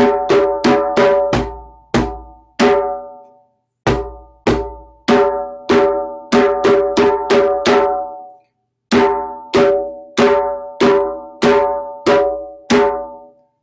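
Djembe played with bare hands: a beginner's rhythm of sharp ringing strokes with a deep bass stroke now and then, about two to three strokes a second. It comes in phrases, with two brief pauses about 3 and 8 seconds in.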